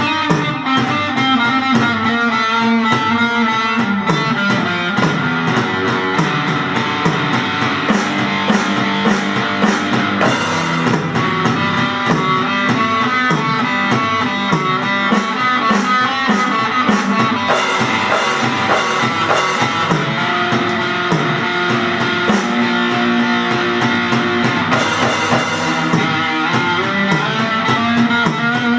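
Rock music with guitar and a drum kit playing steadily.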